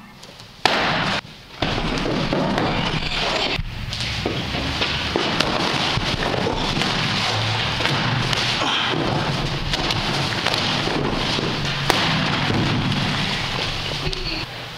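Loud background music with a dense, rumbling, noisy texture, opening with a sharp hit.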